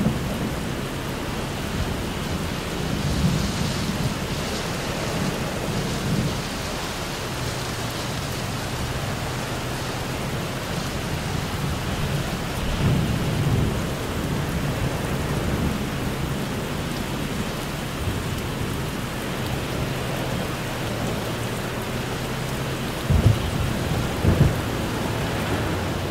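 Heavy rain falling in a thunderstorm, heard from inside a moving vehicle, as a steady hiss over a low, even engine hum. Low rumbles swell and fade a few times, and there are two sharp thumps near the end.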